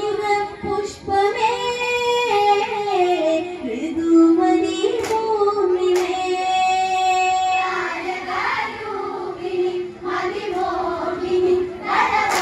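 Women's group singing a Malayalam Onam kali folk song in unison, one melody with long held notes, with two sharp claps near the middle.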